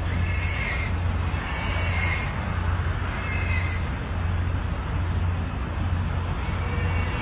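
Pigs squealing and screaming inside a slaughterhouse, heard from a distance: shrill cries rise and fall three times in the first half, then fade, over a steady low rumble.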